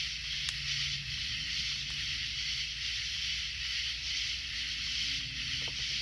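Steady chorus of night insects, a dense high-pitched drone without breaks.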